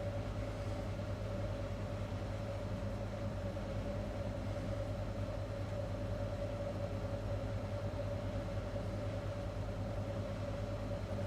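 A steady low rumbling hum with a constant mid-pitched tone running through it, unchanging throughout.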